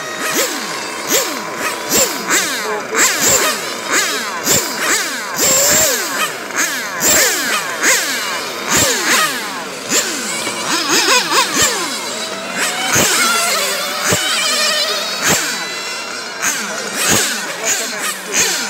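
Several 1/8-scale electric RC cars lapping a track, their electric motors whining, each rising and falling in pitch as the cars accelerate and slow for corners. Many whines overlap, and short thumps recur.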